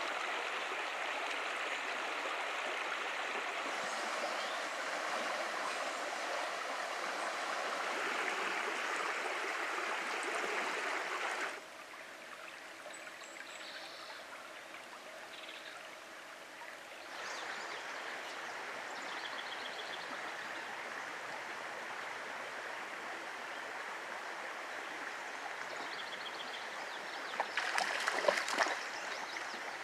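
Shallow trout stream running and trickling over stones, steady and fairly loud at first, then dropping suddenly to a quieter flow about a third of the way in and rising a little again. Near the end a hooked trout thrashes at the surface in a few sharp splashes, the loudest sounds here.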